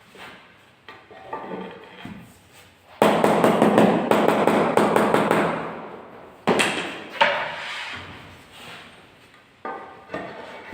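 Marble floor tiles being knocked down into their bed during laying: a fast run of knocks about three seconds in, then a few single sharp knocks later.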